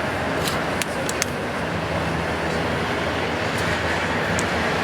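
Diesel locomotive running with a steady low rumble, with a few faint clicks about a second in.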